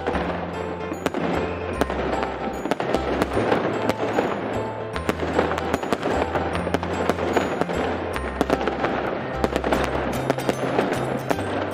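Aerial fireworks bursting and crackling in rapid, continuous succession, over music with a deep bass line.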